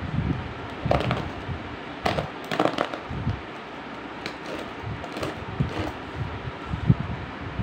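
Plastic packing tape crinkling and crackling on a cardboard parcel as it is gripped, turned and worked open with a utility knife, in irregular bursts with low bumps from handling the box.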